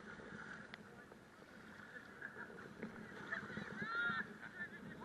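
A quick series of short, high honking calls, each rising and falling in pitch, about three and a half to four seconds in, over a faint, steady background.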